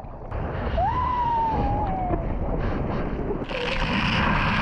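Pool water splashing and sloshing against a waterproof camera held at the surface, growing into a louder, brighter rush of water about three and a half seconds in as the camera goes into the water. A child's short high voice glides up and down about a second in.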